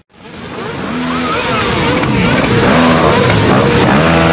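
A column of motorcycles rolls past with many engines running and revving, mixed with crowd voices. The sound fades in from silence over the first second.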